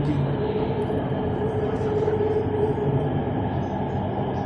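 BTS Skytrain electric train running between stations, heard from inside the car: a steady rumble with a held whine through roughly the first three seconds.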